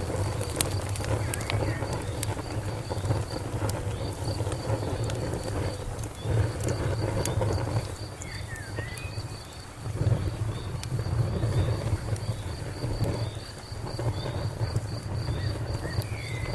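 Wood fire crackling, with sharp scattered pops over a low flame noise that swells and eases every few seconds. A cricket chirps in a steady, even rhythm throughout.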